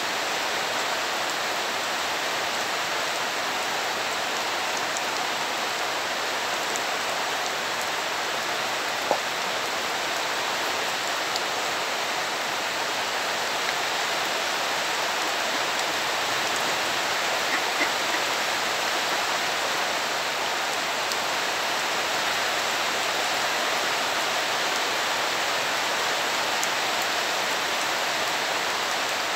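Steady rain falling on a muddy yard and puddles, an even hiss throughout, with a few faint ticks about nine seconds in and around eighteen seconds.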